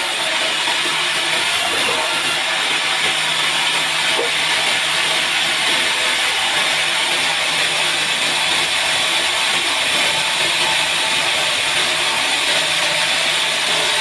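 Large vertical band saw running steadily while a log section is pushed through the blade and sawn: an even, unbroken noise with a faint steady hum beneath it.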